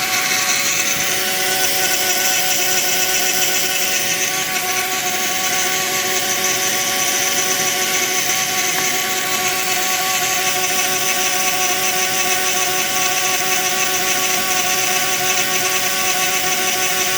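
Dremel rotary tool, the spindle of a small DIY CNC mill, running steadily at high speed while its metal-cutting bit slowly mills a slot into a metal model train chassis. It makes an even whine of several held tones over a hiss of cutting.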